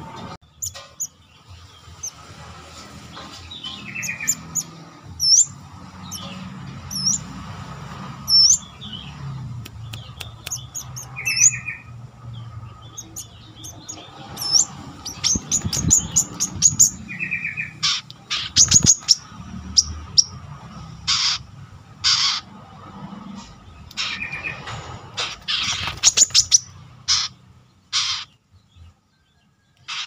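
Brown-throated sunbird giving short, sharp upward-hooking chirps and a few brief trills. From about halfway the calls come faster and louder, as strings of harsh chirps.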